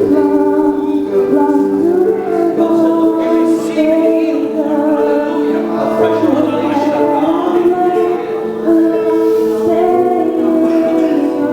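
Worship music with singing: a sung melody held note to note over sustained keyboard-like chords.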